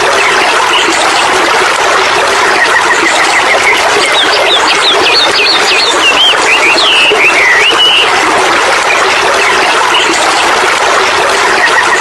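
Waterfall cascade rushing steadily and loudly, with birds chirping and whistling over it, a quick trill a few seconds in and a run of chirps in the middle.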